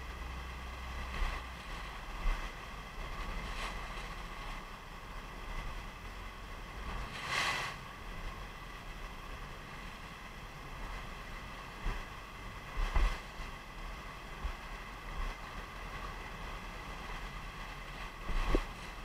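The Rhine Falls and the churning white water of its basin rushing, heard from close by, with wind buffeting the microphone. A louder rush of spray about seven seconds in, and a few low knocks near the end.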